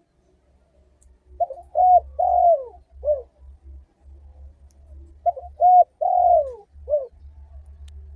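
Spotted dove (tekukur) cooing: two matching phrases a few seconds apart, each of two short coos, a longer falling coo and a short final coo. A faint low hum sits underneath.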